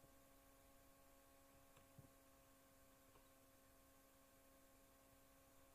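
Near silence: a faint steady electrical hum with light hiss, and one faint click about two seconds in.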